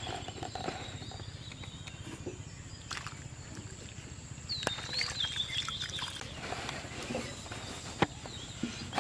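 Rural outdoor ambience: a bird call about halfway through, over a steady high thin whine and a low hum, with a couple of sharp clicks.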